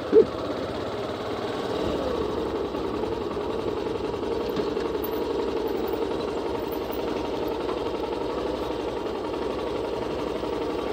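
A vehicle's engine running steadily at low speed on a rough dirt track, with a slight rise in pitch about two seconds in.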